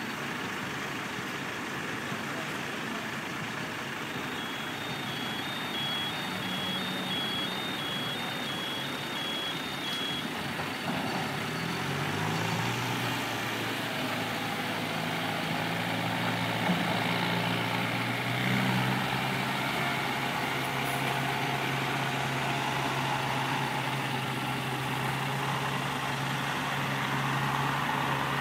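Heavy vehicle at a construction site: its reversing alarm beeps in two alternating tones for about six seconds. A little later its engine picks up in pitch and then runs steadily.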